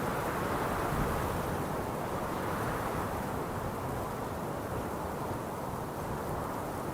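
Strong wind blowing in a steady, dull rush, easing a little about halfway through.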